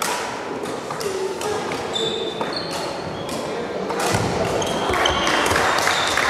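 Badminton doubles rally in a large hall: rackets striking the shuttlecock in sharp clicks, with short high squeaks of court shoes on the wooden floor. Footfalls and floor thumps get louder and busier from about four seconds in.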